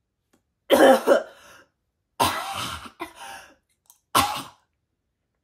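A woman hacking and gagging in three loud, rough bursts, acting out a cat coughing up a hairball.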